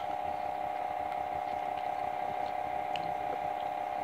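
A steady hum that doesn't change, with a couple of faint clicks of a fork against a plate near the start and about three seconds in.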